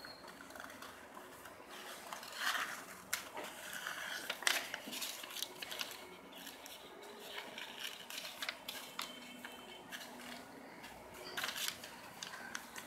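Loose paper sheets of a handmade booklet rustling and crinkling as pages are turned, a few brief, faint rustles at irregular moments.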